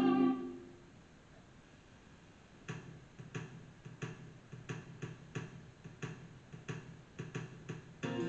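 Background music fades out, and after a quiet gap a steady beat of light percussive ticks starts, about three a second. Guitar music comes back in near the end.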